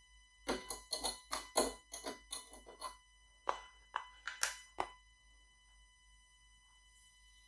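Sugar being spooned and tipped from a plastic container into the stainless steel bowl of a Bosch Cookit kitchen machine. It makes a quick run of scraping, rattling clicks for about two and a half seconds, then four single knocks.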